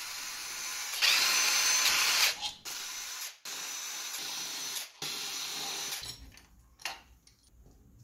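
Makita 18 V cordless impact wrench undoing the 10 mm connecting rod big end cap bolts, in several runs of one to two seconds each, the longest and loudest about a second in. It stops about six seconds in, and a single light metallic click follows.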